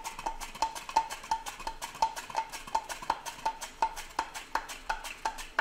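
Radishes being sliced on a plastic hand mandoline: a fast, even run of crisp clicks, about three strokes a second, as each pass snaps a slice off and into the bowl.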